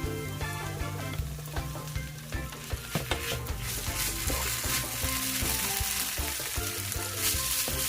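Food frying in hot oil, a steady sizzle with scattered pops that grows stronger about halfway through. Background music plays underneath.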